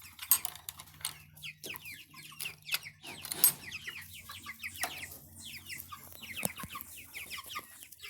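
A flock of chickens clucking, with many short, overlapping falling calls and a few sharp knocks mixed in.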